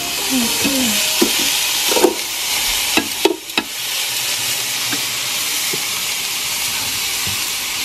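Seasoned beef fajita meat sizzling steadily on the hot grill grate of a Ninja indoor grill, with a few sharp clicks of tongs against the grate as the meat is arranged.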